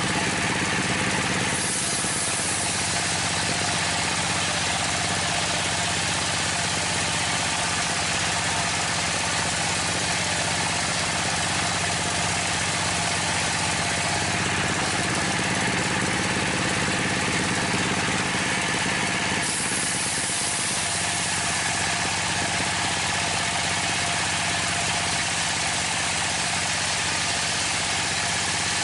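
Dompeng (Dongfeng-type) single-cylinder diesel engine running steadily, driving a homemade table circular saw that rips long timber planks. The saw's high hiss grows louder near the start and again about fifteen to twenty-two seconds in.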